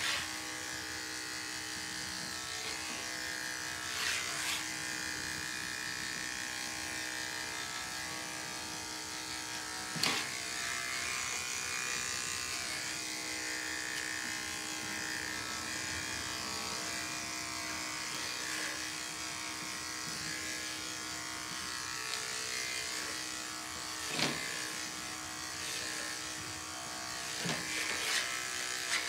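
Electric pet hair clippers running steadily with a constant buzz while trimming a dog's coat, with a few short knocks, the loudest about ten seconds in.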